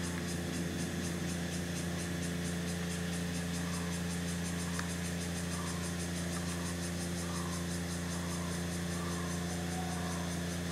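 A steady, even machine hum, as from a motor or pump, with a faint fast ticking high above it.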